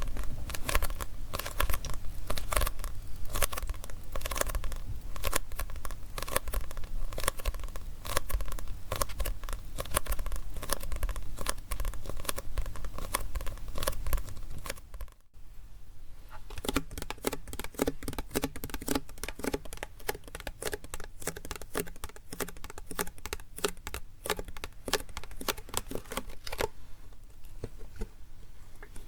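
Rapid close-up tapping and scratching on a printed manga book, then, after a brief break about halfway, quieter, sparser tapping and handling of a plastic drink bottle.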